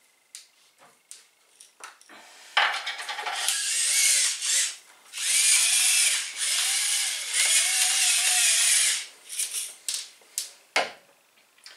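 Electric spice mill grinding seasoning in several bursts, a whirring grind whose pitch wavers up and down, with a few light clicks before and after.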